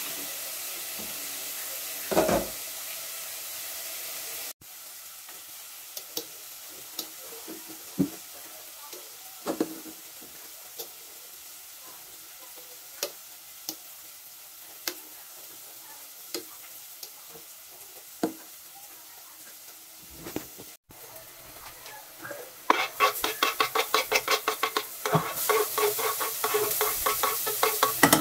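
Kitchen work in three parts. First a tap runs steadily into a steel sink, with one thump. Then come scattered knocks and clinks of a utensil in a pot of cooked potatoes. Last, from about 23 seconds, a wooden spoon knocks and scrapes quickly in a pot on the stove with frying sizzle.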